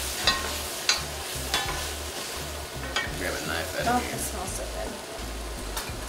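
A wooden spoon stirring mushrooms and vegetables sautéing in a red enamelled cast-iron pot, with a steady sizzle. The spoon knocks sharply against the pot about four times in the first three seconds.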